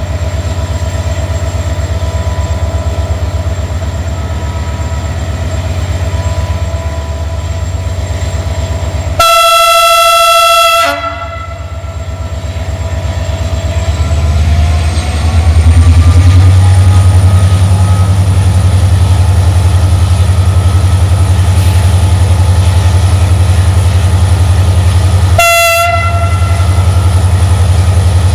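Diesel locomotive running at the head of a passenger train, then sounding a loud horn blast of nearly two seconds about nine seconds in. Its engine then revs up with a rising whine and keeps running louder under power, and the horn gives a short toot near the end.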